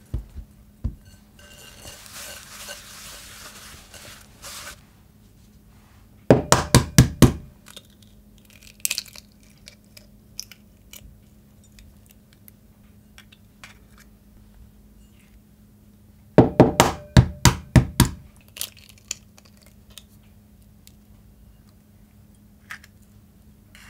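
Eggs cracked by knocking the shell sharply several times in quick succession, about six knocks in a row, twice, with light clicks of shell around them. Near the start come a couple of clinks as glass bowls are set down, then a soft cloth wiping noise.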